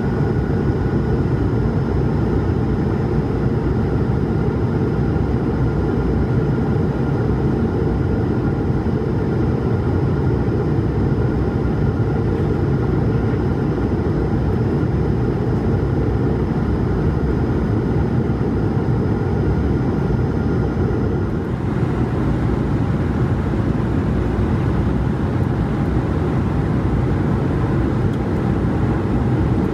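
Steady cabin roar of an Airbus A220-300 descending on approach, heard from a window seat beside the wing: airflow and its Pratt & Whitney PW1500G geared turbofan engines. A faint high whine in the noise drops away about twenty seconds in.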